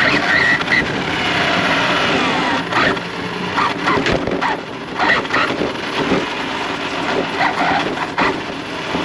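Radio-controlled car with its motor whining and rising and falling in pitch, with several sharp clicks and knocks from about three seconds in, and voices in the background.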